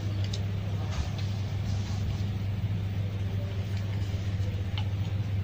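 Steady low hum of room background noise, with a few faint short clicks.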